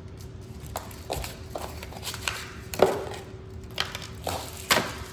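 Irregular clicks and knocks of small gear and parts being handled and fitted together, about nine in all, the loudest about three seconds in, over a faint steady hum.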